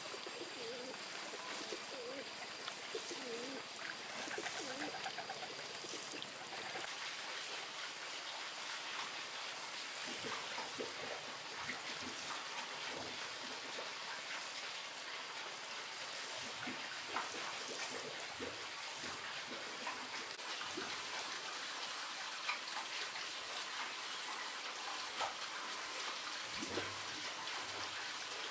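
Doves cooing for the first few seconds over a steady trickle of running water, with scattered small clicks and splashes.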